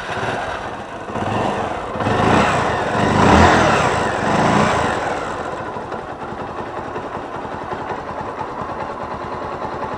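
Bajaj Pulsar 220 single-cylinder motorcycle engine running just after being started, rising and falling in pitch and loudness as it is revved for a few seconds, then settling to a steady idle. It is a test run after the engine was reassembled, to check whether an internal breaking noise has gone.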